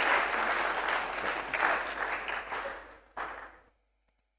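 A roomful of people applauding, the clapping dying away about three seconds in with a last stray clap.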